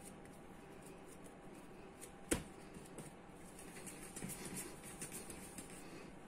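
Hands rolling a ball of sugar-bread dough against a stone countertop: faint soft rubbing and scuffing of dough and palm on the stone, busiest toward the end, with one sharp knock a little over two seconds in.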